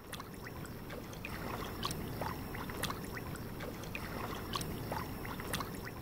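Wetland ambience: a steady water-like rush with many short, scattered chirps and clicks through it.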